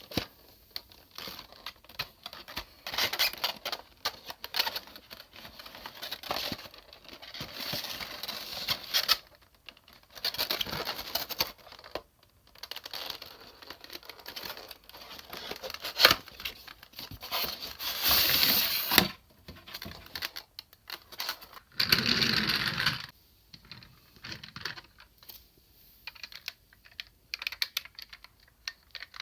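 Plastic parts of a DX Sirender robot toy being handled: irregular clicks, rattles and scraping, with a denser rustling stretch of about a second near the end.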